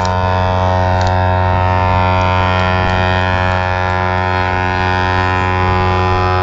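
Ship's horn sounding one long, deep, steady blast.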